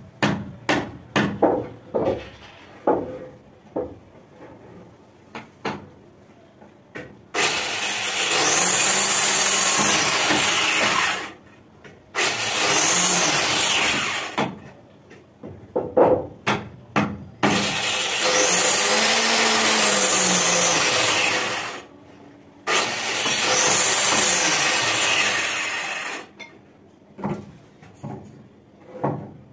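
Handheld electric power tool cutting into a wooden window-frame piece, run in four bursts of two to four seconds each, its motor pitch sagging and recovering under load. Before the bursts, and again near the end, come sharp wooden knocks as the frame pieces are handled.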